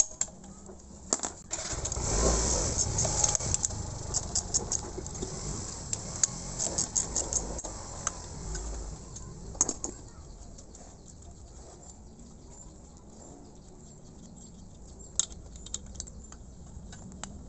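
Metal clinks and rattles of hand tools and air-compressor head parts being handled during reassembly, busy for about the first ten seconds, then a few isolated clicks near the end.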